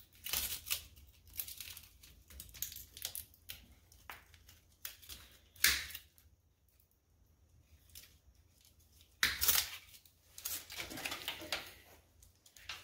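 Wire snips cutting through wires of a factory engine-bay wiring harness: sharp snips mixed with the rustle and crinkle of the wire bundle and plastic loom being handled. There is a quiet stretch of about three seconds past the middle, then more handling and cutting.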